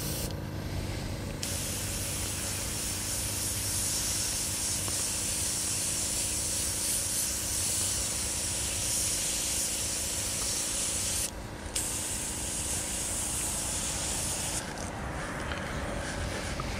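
Airbrush spraying paint with a steady hiss that starts about a second and a half in, breaks off briefly about eleven seconds in, and stops a couple of seconds before the end. A steady low hum runs underneath.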